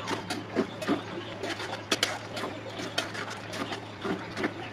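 Metal spatula scraping and knocking against an aluminium kadai while stirring thick khichuri, a quick irregular run of scrapes and clicks, over a steady low hum.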